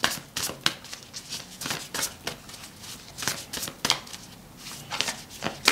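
Deck of oracle cards shuffled by hand: a steady run of short, crisp swishes of card sliding against card, about three or four a second.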